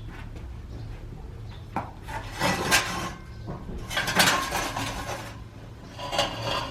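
Metal parts clanking and rattling in three bursts a second or two apart, over a steady low hum.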